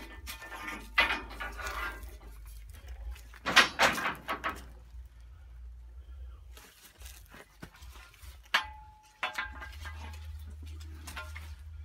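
Metal clanks and clinks from a long steel pipe being handled and propped against an old stationary engine, with one short ringing clang about two-thirds of the way through.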